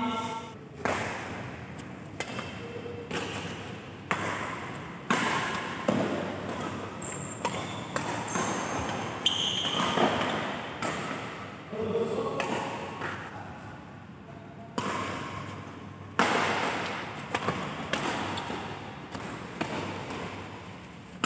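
Badminton rally: rackets smacking the shuttlecock back and forth about once a second, each hit trailing off in the hall's echo, with short squeaks of shoes on the court floor between shots.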